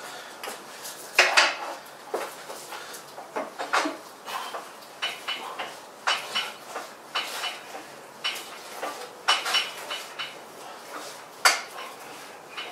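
Iron weight plates stacked on a short handle clanking and clinking against each other as the load is lifted and lowered, about once a second, with short metallic rings. A few louder clanks stand out, the loudest near the end.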